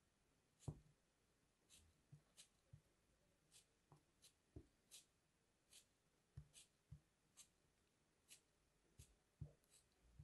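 Craft-knife blade cutting into a block of kinetic sand in short strokes: soft, scratchy crunches, a little more than one a second at an uneven pace, some with a faint low tap.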